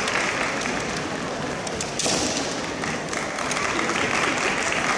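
Spectators applauding steadily.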